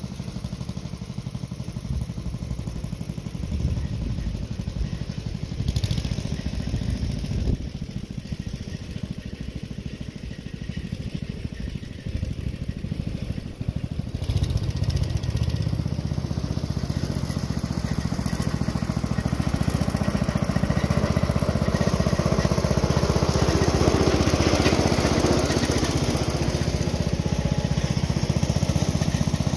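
1968 Wheel Horse garden tractor's engine running steadily while mowing grass. It grows louder from about halfway through as the tractor comes back closer.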